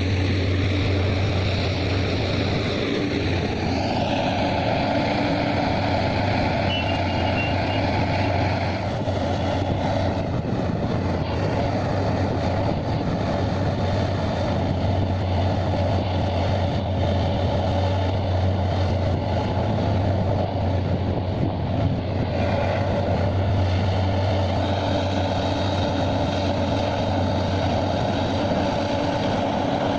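Heavy diesel machinery running steadily under load, a constant deep engine drone with a noisier mid-range layer that swells about four seconds in and again near the end.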